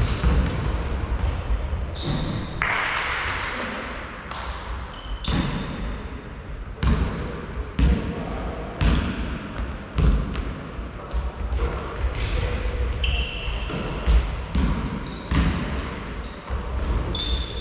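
Basketball bouncing on a sports-hall floor during play, sharp irregular thuds about once a second that echo around the hall, with brief high-pitched sneaker squeaks here and there.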